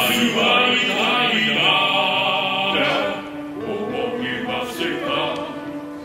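Male voices singing in a two-part chorus, holding long notes for about the first three seconds, then dropping to a quieter sung phrase.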